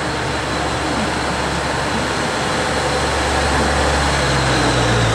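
JR Central HC85 series hybrid diesel train pulling slowly into the platform. It runs steadily, and a low engine hum grows louder near the end as it draws close.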